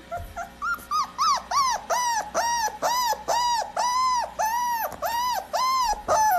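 A young animal crying over and over in high, arching whimpers, about three a second, growing louder over the first second and then keeping an even pace.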